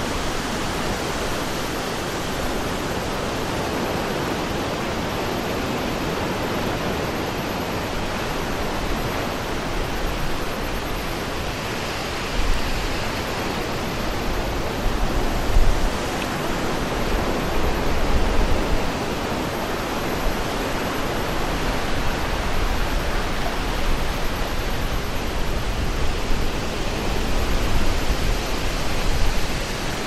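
Steady seaside wind rushing over the microphone, with stronger gusts buffeting it several times from about twelve seconds in, over the wash of sea water at a harbour breakwater.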